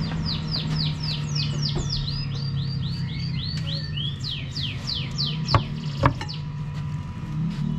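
A songbird singing a fast run of high, down-slurred chirps, about four or five a second, that stops about six seconds in. Under it runs a steady low hum, and two sharp knocks come about half a second apart near the end.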